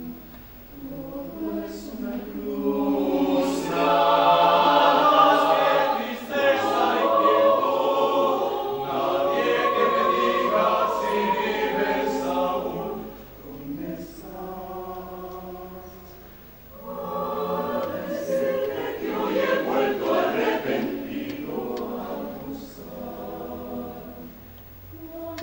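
Mixed choir of men's and women's voices singing together, swelling to a loud passage, falling back softer in the middle, then swelling again before tapering off near the end.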